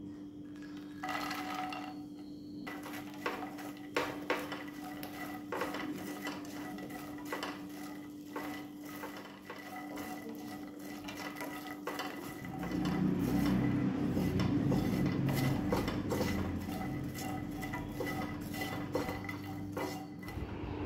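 Makhana (fox nuts) being stirred in a nonstick frying pan with a spatula: a run of light clicks and scrapes as the nuts and spatula knock against the pan, over a steady low hum.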